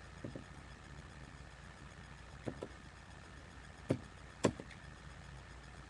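Quiet room tone with a steady low hum, broken by a few short clicks: a faint pair about two and a half seconds in and two sharper ones a little later, about half a second apart.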